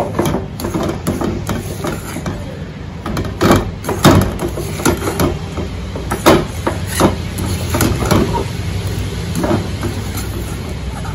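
Perforated steel ladle scraping and knocking against a steel kadai as roasted peanuts are stirred and turned through thick jaggery syrup: irregular clanks and scrapes, with a steady low hum underneath.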